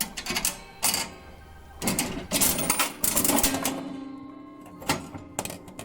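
Coins clinking and a toy vending machine's coin mechanism clicking and clattering as it is worked, a string of sharp clicks with a short ringing tone in the middle.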